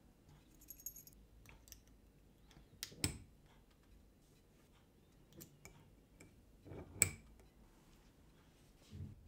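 Glass clip-top canning jar being sealed: a light clink as the glass lid settles about a second in, then two sharp metallic clicks some four seconds apart as the spring clips snap over the lid, with small ticks of fingers on glass and metal between.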